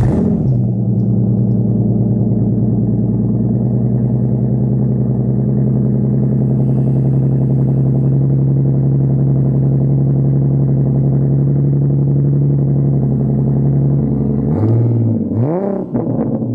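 Ford Mustang engine idling steadily, heard at the exhaust tips. Near the end the pitch dips and then swings up and back down in a quick rev before it settles again.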